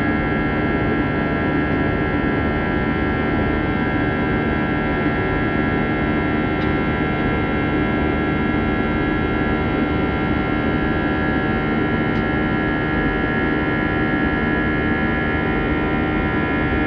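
Airbus A320 cabin in the climb after takeoff: the steady drone of the jet engines and the air rushing past, with a cluster of steady hum-like tones. Two faint ticks come about a third and two-thirds of the way through.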